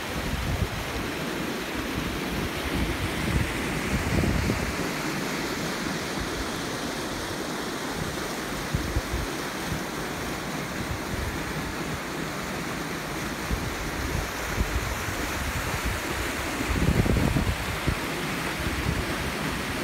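A small stream rushing steadily through its channel, with wind buffeting the microphone in gusts, most strongly in the first few seconds and again near the end.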